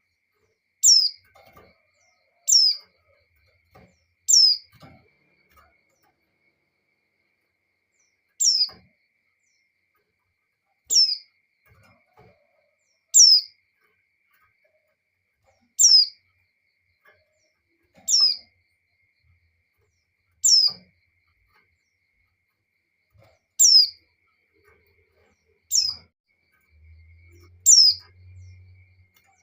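Female pleci (white-eye) repeating a short, high call note that sweeps quickly downward, about a dozen times at roughly two-second intervals: a female in breeding condition calling for a male. A faint low hum comes in near the end.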